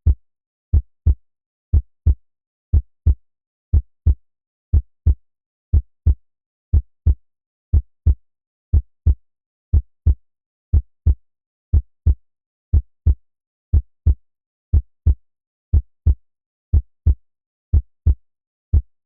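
Heartbeat sound effect: low double thumps in a steady lub-dub rhythm, about one beat a second.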